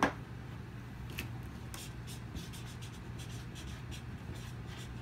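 Felt-tip marker writing on a flip-chart pad: a run of short, scratchy strokes on the paper as a word is lettered, over a faint steady low hum.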